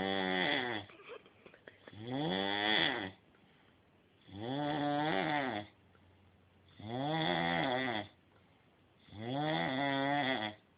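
A man snoring in his sleep: five long snores about two and a half seconds apart, each rising then falling in pitch, with near quiet between them.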